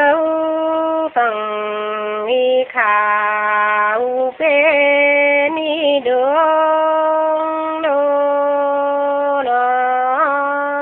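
Nùng folk song sung by a single voice: long, steady held notes joined by short slides in pitch, with brief breaks between phrases.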